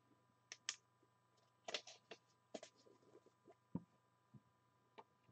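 Near silence broken by faint, scattered clicks and taps: a pair about half a second in, a cluster around two seconds in, and a duller thump a little before four seconds.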